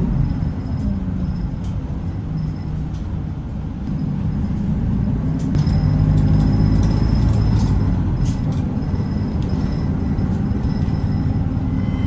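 Inside a Nishitetsu city bus: the diesel engine drones steadily as the bus drives, growing louder about halfway through, with scattered small rattles and clicks from the cabin.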